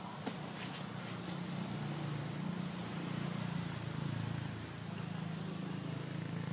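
Steady low engine rumble, like a motor vehicle running, with a few short high ticks in the first second and a half.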